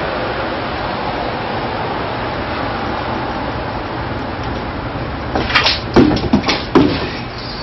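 Katana swinging through two oranges tossed in midair: a quick cluster of sharp swishes and hits lasting about a second and a half near the end, over a steady background hiss.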